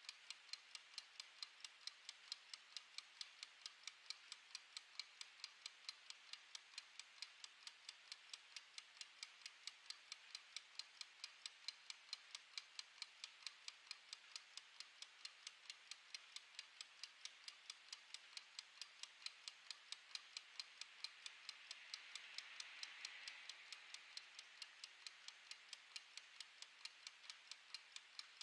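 Mechanical wind-up kitchen timer running down, its clockwork escapement giving a fast, perfectly even, faint ticking. A soft hiss swells briefly about three-quarters of the way through.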